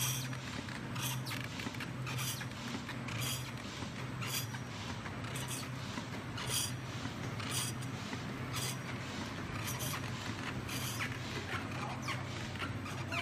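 Sesame candy cutting machine running: a steady motor hum with a short, sharp stroke repeating about once a second as the cutter works.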